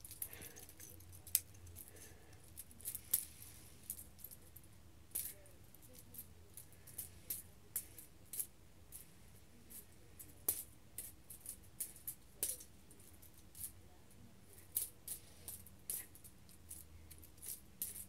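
Scattered light clicks and taps as a golden fidget spinner is handled, with a few sharper clicks among them.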